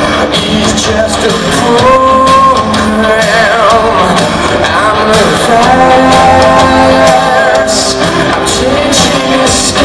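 Rock band playing live in an arena, recorded from the crowd: electric guitars, bass and drums with steady cymbal hits, and held sung notes over the top, echoing in the large hall.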